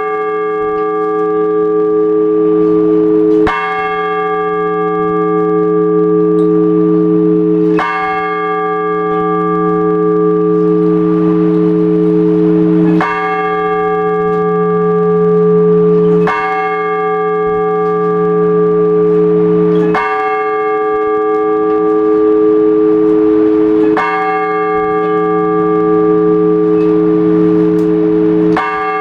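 A single large Orthodox church bell tolled slowly, one stroke about every four seconds, each stroke ringing on until the next. This is the blagovest, the measured tolling of one bell that calls the faithful to the all-night vigil.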